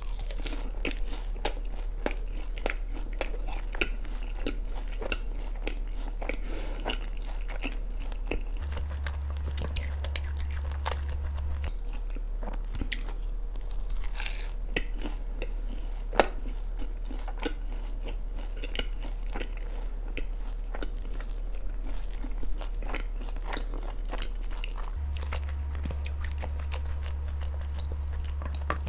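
Close-miked eating sounds: biting into and chewing boneless sauced fried chicken and spicy stir-fried Buldak noodles, with many short, irregular crunches and wet mouth sounds over a steady low hum.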